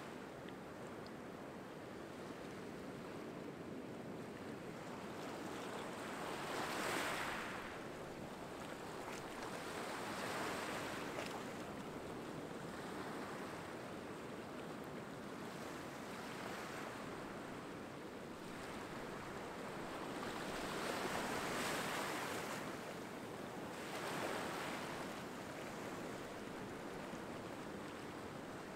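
Small waves washing up a sand and pebble beach among rocks, in about five slow surges that swell and fade.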